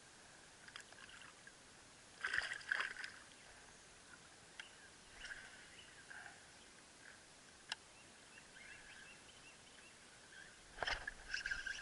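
Faint handling sounds in a plastic kayak: a cluster of knocks and rattles about two seconds in, a few isolated ticks after, and another knock near the end.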